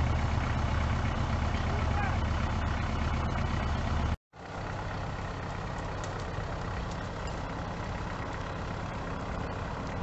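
Compact tractor engine running steadily at low speed as the tractor is driven slowly, a low hum. About four seconds in the sound cuts out for a moment and comes back quieter and more distant.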